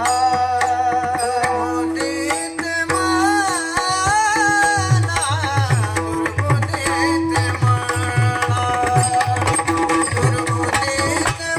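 A male voice sings a heavily ornamented devotional melody over a steady drone, accompanied by a mridang (pakhawaj) barrel drum. The drum's deep strokes come in strongly about four seconds in and keep a fast rhythm.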